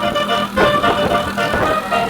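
Basuri 36-note telolet air horn on a bus playing a melody: several horn tones sounding together and stepping from note to note, with sharp clicks between them.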